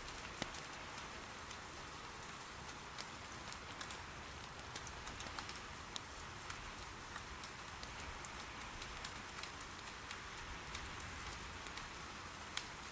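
Steady, soft rain, with scattered sharp pops of wood burning in an irori hearth fire.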